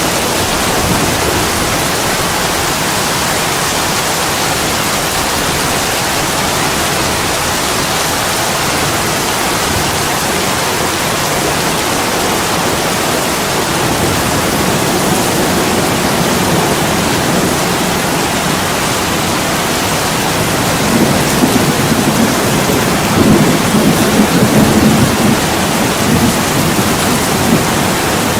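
Steady heavy rain pouring against a window glass. About two thirds of the way through, a low rumble of thunder swells for several seconds and then fades back into the rain.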